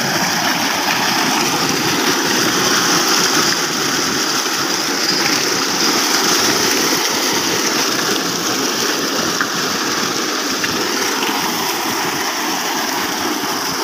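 Tube-well water gushing from an outlet pipe into a concrete tank: a steady, unbroken splashing rush.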